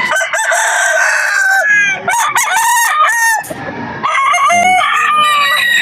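Several gamefowl roosters crowing, long calls following and overlapping one another, loud and close.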